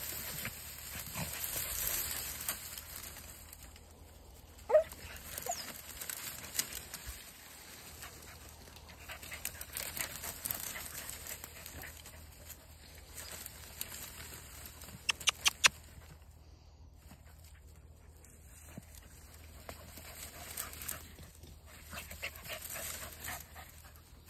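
A Podenco Andaluz hunting dog, hidden in the dry scrub, gives a short rising yelp about five seconds in and a quick burst of four sharp yelps around fifteen seconds, typical of a podenco giving tongue on a scent.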